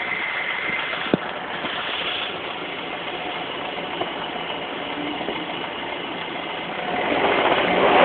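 BMW M43 inline-four petrol engine running at idle, with a sharp click about a second in. It grows louder near the end. The engine has a knock in it.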